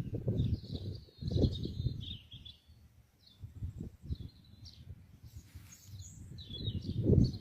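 Small birds chirping in short calls over gusty low rumbling noise, the rumble loudest about a second and a half in and again near the end.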